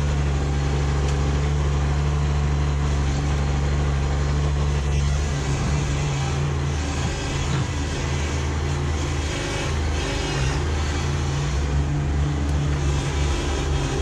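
Kubota B2601 compact tractor's three-cylinder diesel engine running steadily as the tractor drives forward pushing its root rake grapple through the soil, the engine note wavering slightly under load in the second half.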